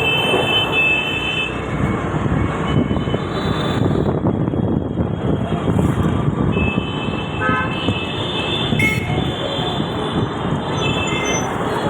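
Steady rumble of a moving vehicle with horns honking, once near the start and again several times in the second half.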